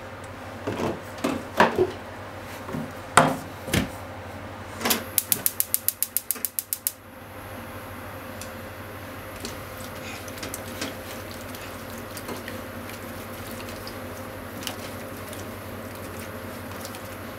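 A few knocks, then a gas stove's igniter clicking rapidly, about seven clicks a second for two seconds, until the burner catches and a faint steady hiss sets in. Faint scattered crackles follow as the pan of tofu and leeks heats.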